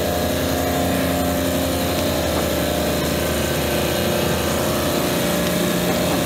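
Refrigeration compressors running in a machine room: a steady mechanical hum with a few constant tones.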